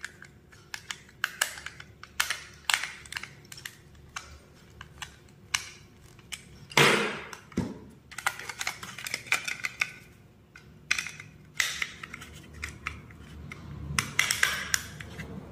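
Plastic bayonet bulb holder being worked by hand: a tester screwdriver scraping and clicking as it tightens a wire terminal screw, then the holder's plastic cover twisted back onto its base, giving many small clicks and scrapes. One louder rub about seven seconds in, and a quick run of clicks near the end.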